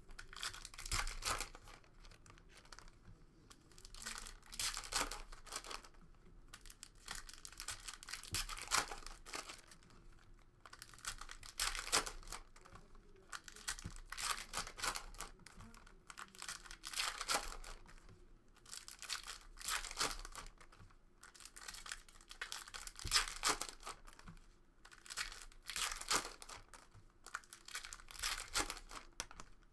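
Plastic trading card pack wrappers being torn open and crinkled, in about ten bursts of a second or two with short pauses between.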